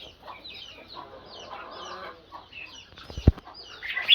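Red-whiskered bulbuls calling and singing in quick, short chirping notes, with one sharp thump a little past three seconds in.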